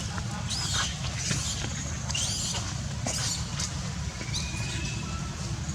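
Baby monkey giving short, high-pitched squeaks again and again, about one every half second, over a steady low hum.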